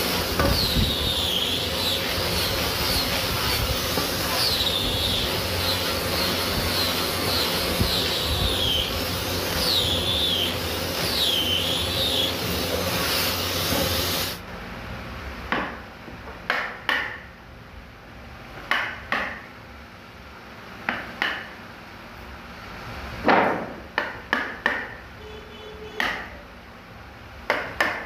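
Angle grinder fitted with a sanding disc, running against wood, its motor whine wavering up and down in pitch. About halfway through it cuts off, and a dozen or so sharp knocks follow at irregular spacing: a wood chisel struck with a hand-held block, chopping a joint.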